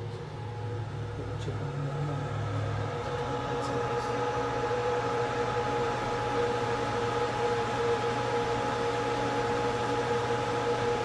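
ZM-R730A BGA rework station's cooling fans running steadily in automatic cooling mode after the reflow profile ends: an even rush of air with a steady hum and a few fixed tones, growing a little louder over the first few seconds.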